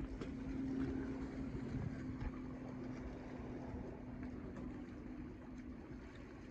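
Wind rumbling on the microphone over a steady low drone, like a distant motor, that fades out near the end.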